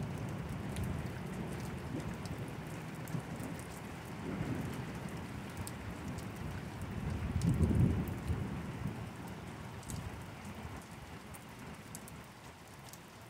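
Rain falling steadily with scattered drops ticking close by, and thunder rumbling low: a small roll about a third of the way in and a louder one a little past halfway. The rain softens toward the end.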